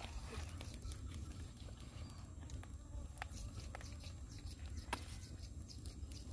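Faint outdoor ambience: a steady low rumble with scattered small clicks and taps.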